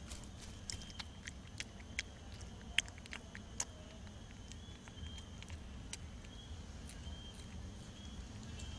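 An opossum chewing banana: a run of short wet smacking clicks from its jaws, frequent for the first few seconds, then sparser and softer.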